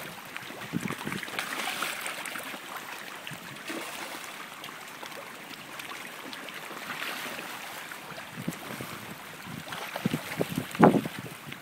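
Pond water lapping and sloshing at the edge, with scattered small splashes and one louder splash near the end.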